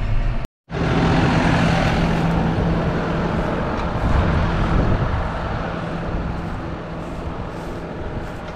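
Farm tractor engine running steadily with a low hum, cut off by a brief dropout to silence about half a second in, then continuing and growing somewhat quieter in the second half.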